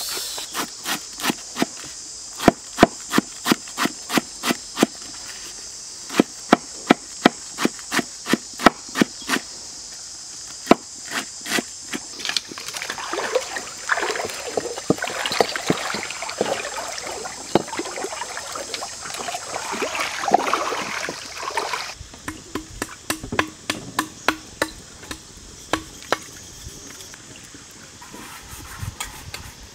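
Repeated sharp chopping strikes, about two a second, for roughly ten seconds, with a steady high insect buzz behind them. Then comes a stretch of water hissing and splashing in a hot wok over a wood fire, and a few more strikes near the end.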